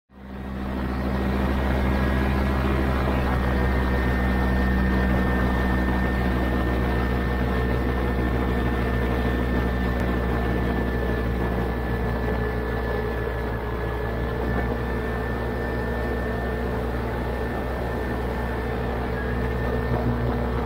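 Vittorazi Atom 80 single-cylinder two-stroke paramotor engine and propeller running at a steady cruise throttle in flight, with wind rushing past. It fades in at the very start and eases slightly in level about halfway through.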